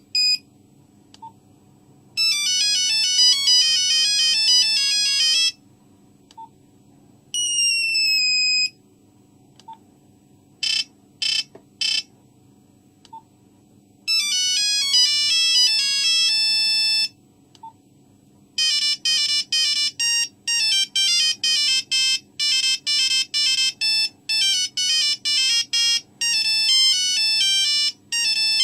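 A Nokia 3310's monophonic ringtones and alert tones played one after another: short melodies of buzzy single beeping notes, with pauses of a second or two between them. A fast, choppy tune starts about two-thirds of the way through and keeps going.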